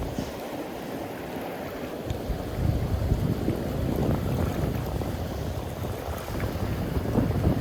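Wind buffeting the microphone outdoors, a gusty low rumble and rush that swells about two seconds in and stays up.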